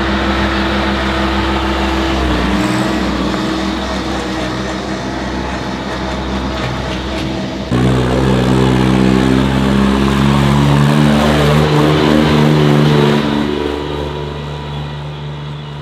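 Tractor engine running hard under load on a hill-climb run. About eight seconds in, a louder, deeper engine note comes in abruptly, holds steady, then fades away near the end.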